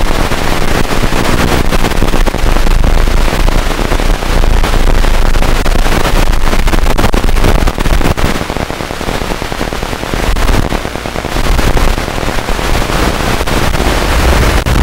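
Loud crackling static hiss from an analog FPV video link's audio channel, dense with tiny pops, dipping a little about halfway through.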